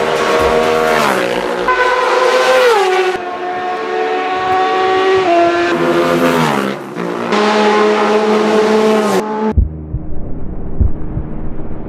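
Classic racing motorcycles passing at high speed one after another. Each engine's note drops in pitch as the bike goes by.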